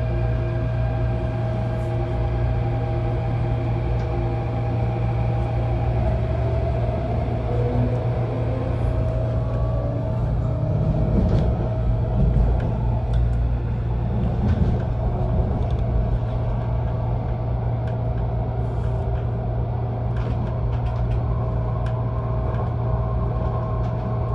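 Cabin noise aboard an MTR Airport Express Adtranz-CAF A-Train electric train pulling out of the station and gathering speed: a low rumble of running gear on the track under steady electric drive tones. Some of the tones glide in pitch partway through, and there are scattered light clicks later on.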